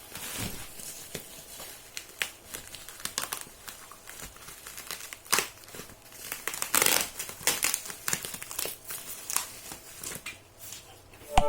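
Plastic bubble-wrap packing crinkling and rustling in irregular bursts as it is pulled off a keyboard, with a sharp knock just at the end.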